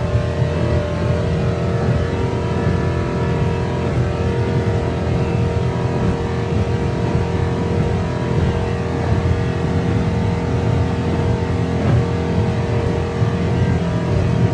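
Mercury engine of a 30-foot Phantom Pro-Stock V offshore powerboat running hard at a steady pitch, heard from the cockpit at speed.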